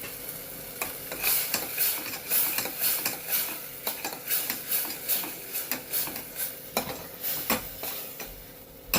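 A spoon stirring and scraping tomato-onion masala in a pan, about two strokes a second, with the masala sizzling as it cooks down after red chilli powder is added. A sharp click near the end.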